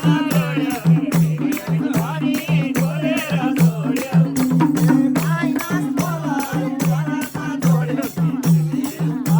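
Nepali dohori folk music playing without singing: a fast, even beat with a shaker-like rattle, a repeating low note pattern, and a wavering melody above.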